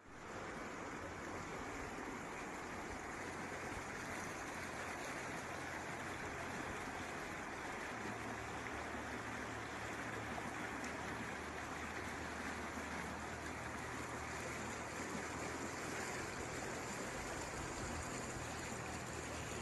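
Muddy flash-flood water rushing down a street, a steady rushing noise.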